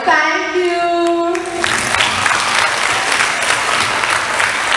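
A voice holds one steady note for about a second and a half, then the audience breaks into applause that carries on to the end.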